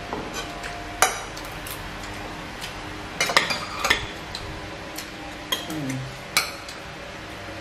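Metal spoons clinking and scraping against ceramic bowls during a meal, in scattered sharp clinks. The loudest come about a second in and again between three and four seconds in.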